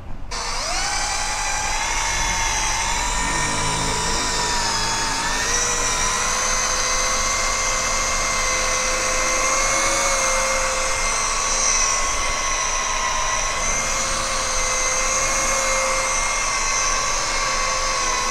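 Cordless drill fitted with a foam polishing pad, buffing polishing compound into the painted plastic of a motorcycle fender. The motor starts and spins up about half a second in, then runs with a steady high whine that wavers slightly in pitch.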